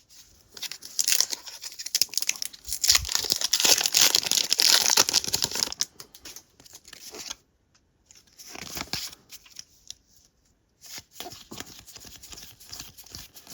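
Foil wrapper of a Pokémon TCG booster pack crinkling and tearing open, dense for the first few seconds, followed by lighter rustling as it is handled.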